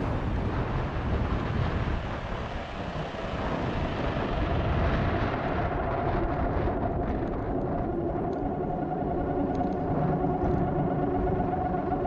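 Wind buffeting and rumble on a moving action camera, with a steady hum of several tones joining about six seconds in.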